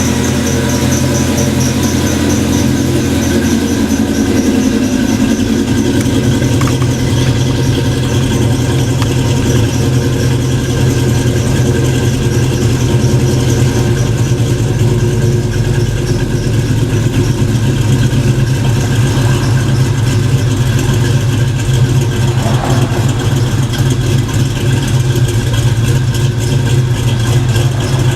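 Fox-body Mustang engine running at idle, a steady mechanical tone whose low note shifts a couple of times.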